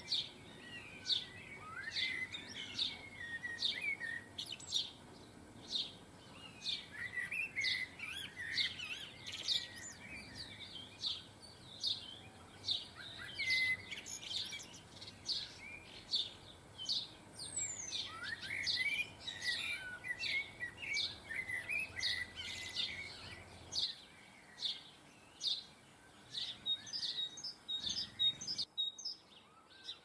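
Garden songbirds calling off-camera: a steady run of short high chirps, about two a second, with bursts of twittering warble among them. The sound drops out for about a second near the end.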